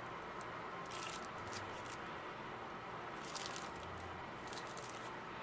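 Faint crinkling and rustling of packaging being handled, in short bursts about a second in and again a little after three seconds.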